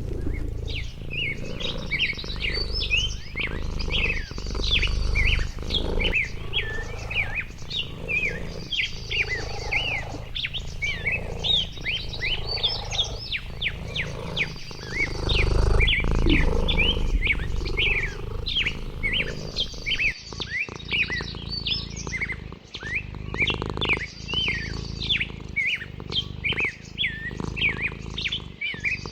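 Many small birds chirping and twittering without a break, in short, rapid, high notes, over a low rumble that swells twice.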